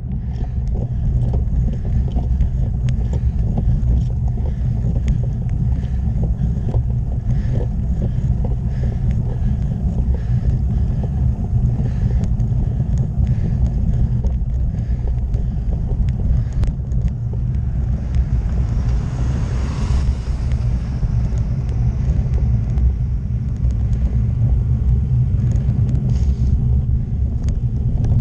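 Steady low wind rumble on a bicycle-mounted camera's microphone, mixed with tyre noise on wet tarmac and small scattered clicks. A hiss swells and fades about two-thirds of the way through.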